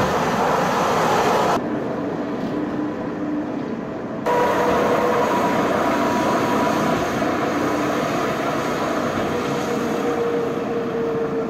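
Pilatus Railway cog railcar passing close by: a dense rumble and clatter of wheels and pinions running on the Locher rack, with a steady whine over it. The sound changes abruptly twice in the first few seconds, once at about 1.5 s and again at about 4 s.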